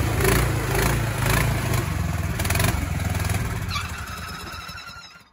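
Small gasoline engine swapped into a golf cart, running loud with repeated surges in revs, then dying away near the end.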